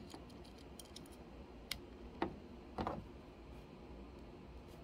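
About four faint, separate clicks and taps from handling a NanoVNA: a stylus tapping its touchscreen.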